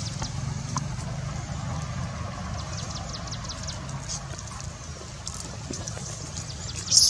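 Baby macaque lying on the ground, mostly quiet with a few faint squeaks over a steady low background hum; near the end it lets out a loud, shrill cry.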